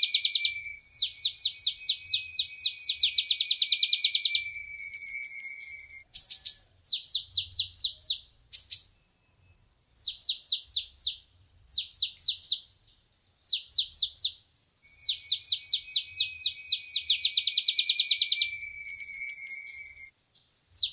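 A sunbird (the 'kolibri ninja' of Indonesian bird keepers) singing: phrases of rapid, sharp, high chirps that each drop in pitch, about eight a second, lasting one to four seconds with short pauses between them. A steady thin whistle runs under the longer phrases, and a short, higher buzzy note comes twice.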